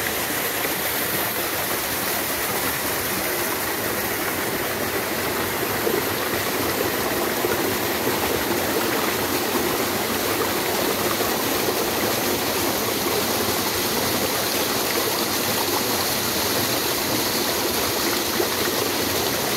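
Shallow rocky stream running and splashing over boulders in small cascades, a steady rush of water.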